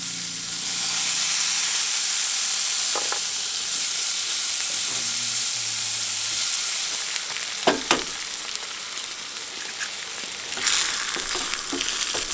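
Red onions sizzling in a hot carbon steel frying pan as they are stirred with a wooden spoon, with a few sharp knocks. The sizzle flares louder near the end as eggs go into the pan.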